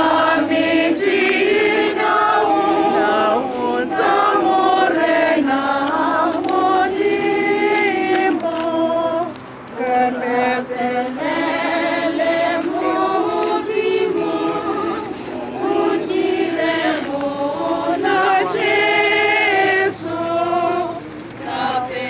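A crowd of young people singing a hymn together, unaccompanied, with a short break between phrases about nine seconds in.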